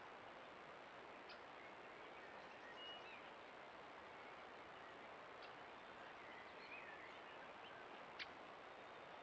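Near silence: steady hiss from a wildlife camera's microphone with a thin high tone, a few faint bird chirps, and a single sharp click about eight seconds in.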